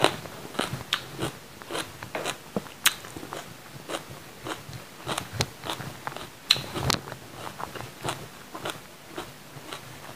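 A person chewing raw green bell pepper: a run of irregular crisp crunches, two or three a second.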